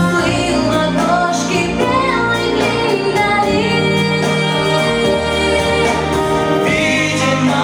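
A vocal ensemble of female voices singing a song over instrumental accompaniment, holding long notes above a steady bass line.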